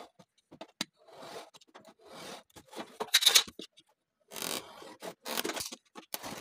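Snap-off utility knife drawn along a ruler, scoring a white sheet in a series of short scraping strokes, about one a second.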